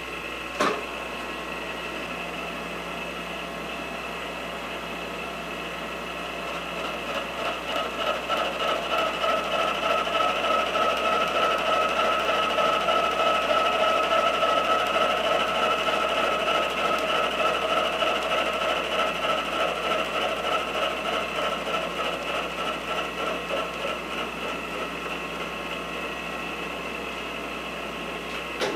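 Vertical milling machine end mill cutting a hex flat into 4140 steel: a steady ringing machining sound that grows louder from about six seconds in, is loudest midway, then eases off. A single sharp click about a second in.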